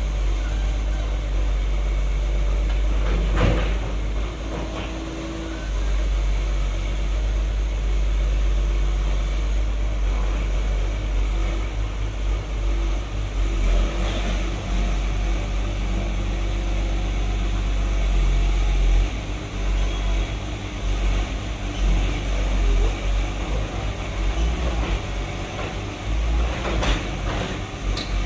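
Caterpillar 320 hydraulic excavator's diesel engine running with a steady low rumble, with a few sharp metallic clanks; the low rumble turns uneven in the last third.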